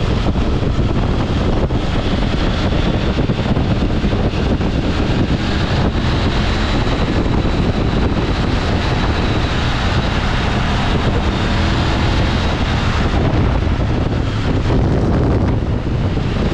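Steady wind buffeting the microphone over the rumble of a moving off-road vehicle.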